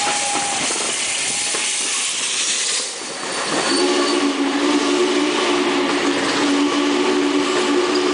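Union Pacific Challenger 3985, a 4-6-6-4 articulated steam locomotive, passing directly below: a loud hiss of steam for the first three seconds, then, from about three and a half seconds in, a steady two-note tone that holds as the train rolls by.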